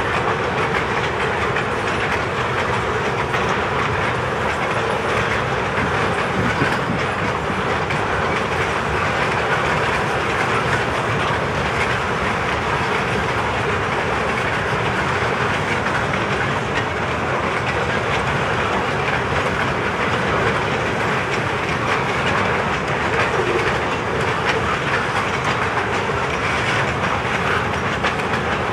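Freight train of boxcars rolling steadily past, with continuous wheel-on-rail noise and clatter from the passing cars.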